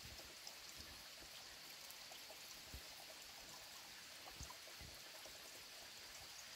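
Faint, steady rush of a creek, with a few soft low bumps.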